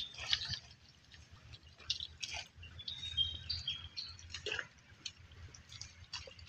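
Irregular small splashes and drips of water, with a few short high chirps about three seconds in.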